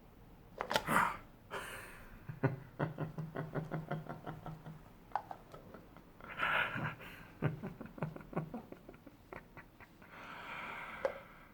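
Close-miked ASMR mouth sounds: several breathy puffs of air and a quick run of soft clicks, about six a second, starting a couple of seconds in.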